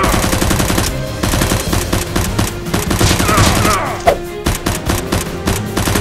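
Rapid bursts of automatic-gunfire sound effects dubbed over the blaster shots, with one sharp, loud shot about four seconds in, over action background music.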